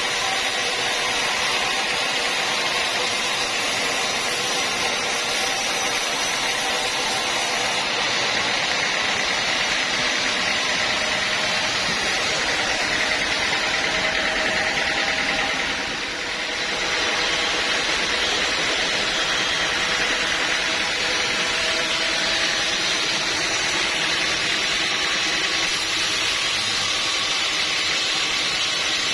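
Sawmill machinery running steadily, with a brief dip in loudness about halfway through.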